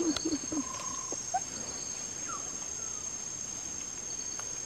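Rainforest insects keep up a steady high-pitched drone, with a few short bird calls over it. Three brief low calls come right at the start.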